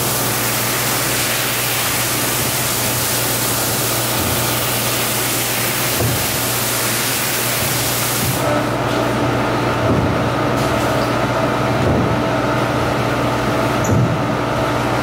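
High-pressure water spraying from a pressure-washer wand onto a wet oriental rug, a dense hiss over a steady low machine hum. About eight and a half seconds in the hiss cuts out, leaving the hum with a few higher steady tones and some soft knocks.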